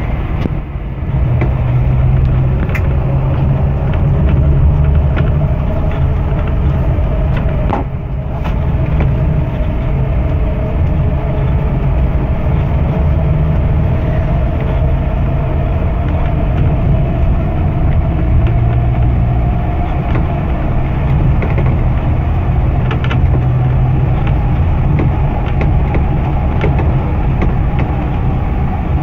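Cabin noise inside a moving Scania coach: the diesel engine's steady low drone under road and tyre noise. A faint whine rises slowly and eases back, and there are a few sharp rattles.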